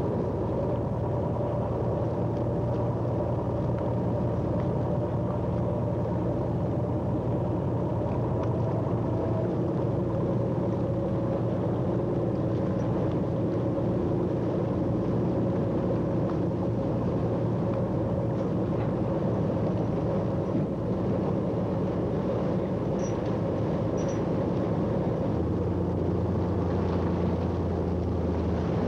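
Boat engine running steadily, a low even drone; its note shifts slightly near the end.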